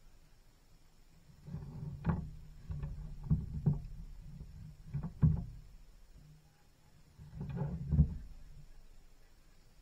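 Wind buffeting the microphone in gusts, a deep rumble with sharp knocks. There are two bouts, one from about one and a half seconds to five and a half seconds in and a shorter one around eight seconds.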